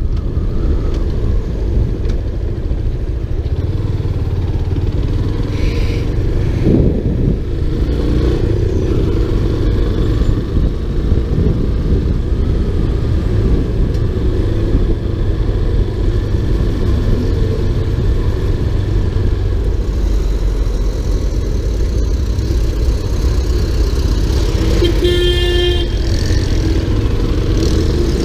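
Motorcycle riding in town traffic, its engine and the passing air making a steady low rumble. A vehicle horn honks once for about a second near the end.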